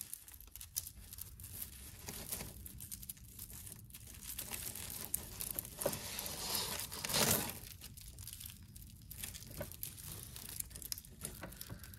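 A knot of three or four tangled necklaces (metal chains, beads and cords) being picked apart by hand: soft, irregular rattling and rustling of the chains and beads, with its loudest flurry about seven seconds in.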